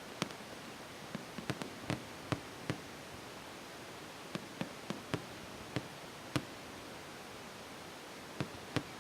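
Fireworks going off at a distance: a dozen or more sharp, irregular bangs and pops over a steady hiss.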